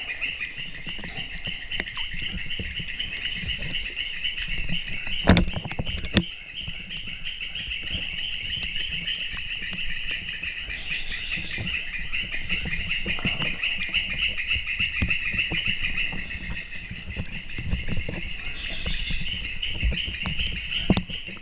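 Outdoor chorus of small animals: a rapidly pulsing trill that goes on throughout, with a steady high whine above it. Low handling noise runs underneath, with two sharp knocks about five and six seconds in.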